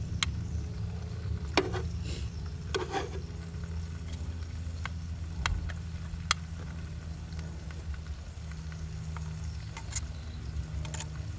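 Food sizzling on a barbecue grill, with scattered pops and clicks, over a steady low rumble of strong wind on the microphone.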